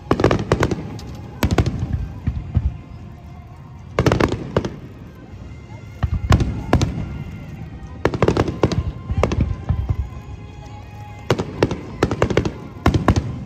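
Aerial fireworks shells bursting in quick clusters, a sharp bang followed by a short echoing rumble, with a fresh cluster every couple of seconds.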